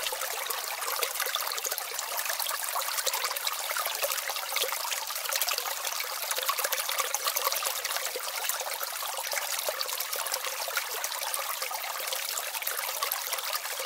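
Shallow water trickling steadily over stones: a continuous high splashing hiss with no low rumble.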